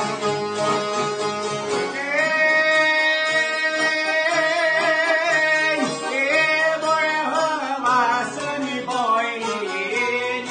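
Albanian folk song played on long-necked plucked lutes (çifteli and sharki) and accordion. A man's singing voice, with a strong vibrato, comes in about two seconds in over the plucked strings.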